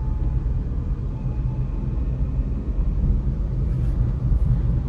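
Renault Kwid 1.0's three-cylinder engine running and road rumble heard from inside the moving car's cabin: a steady low drone.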